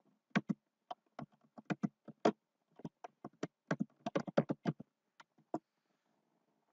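Typing on a computer keyboard: a quick, uneven run of key clicks that stops about a second before the end.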